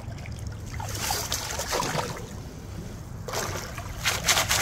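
Stream water splashing and churning as a perforated metal sand scoop is pushed through a shallow streambed. It gets louder and choppier over the last second or so.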